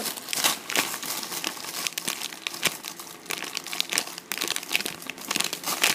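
Irregular crinkling and crackling as a foam squishy toy is squeezed and handled.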